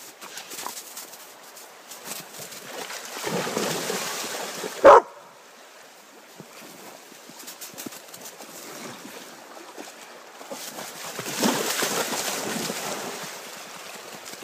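A yellow Labrador retriever barks once, short and loud, about five seconds in. Stretches of rustling noise come before the bark and again near the end.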